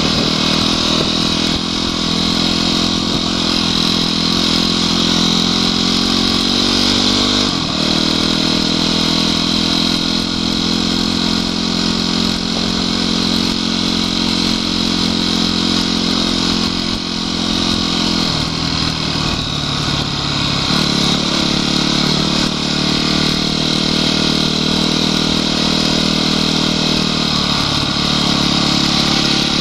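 Honda CRF250X enduro bike's single-cylinder four-stroke engine running under way on a gravel track, heard from on the bike. The engine note drops sharply once about seven seconds in, then dips and climbs back again about eighteen to twenty seconds in.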